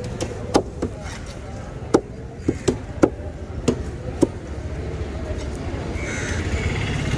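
A heavy knife knocking on a wooden chopping board while cutting raw yellowfin tuna, about eight sharp knocks in the first four seconds. A vehicle engine then grows louder toward the end.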